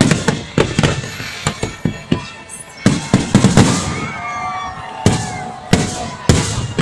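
Fireworks display: aerial shells bursting in a rapid, uneven series of sharp, loud bangs with crackling between them.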